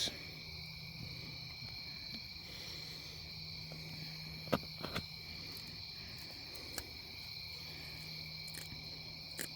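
Steady high trilling of night insects, with a few faint short clicks now and then.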